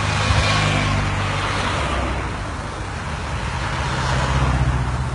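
Motor vehicles passing close by on a road: a van goes past near the start and an SUV about four seconds in, each a swell of engine and tyre noise over a steady low engine hum.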